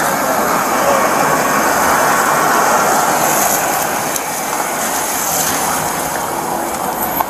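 Steady noise of an idling police SUV, its engine and air-conditioning running, heard up close.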